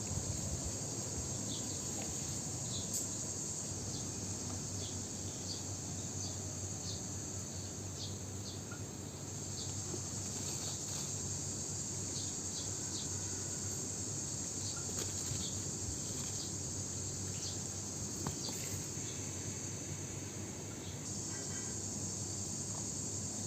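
A steady, high-pitched chorus of insects, like crickets, that eases off briefly twice, with scattered faint clicks.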